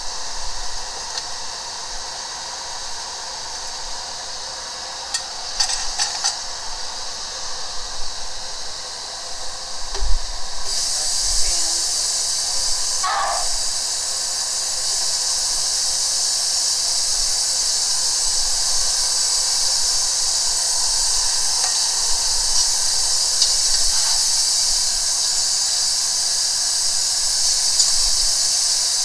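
Garfish balls and roux sizzling in a cast-iron pot: a steady hiss that jumps louder about ten seconds in and then holds. A few light clicks and a knock come before the jump.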